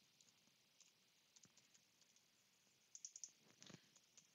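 Near silence, broken about three seconds in by a few faint clicks of computer keyboard keys and a mouse.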